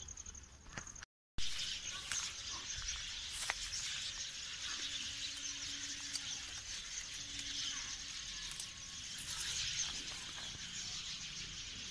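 Leaves and twigs of a ber (Indian jujube) bush rustling and ticking as fruit is picked by hand, over a steady high outdoor hiss.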